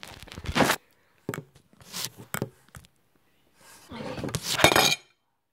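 Handling noise of a phone being moved and propped in place: irregular rustling scrapes and light knocks, building up about four seconds in and cutting off suddenly about a second later.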